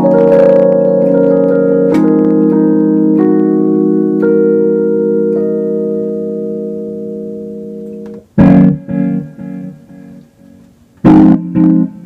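Electronic keyboards playing jazz chords: organ-like held chords with notes added on top that slowly fade, then short, loud stabbed chords with a heavy low end about eight seconds in and again near the end.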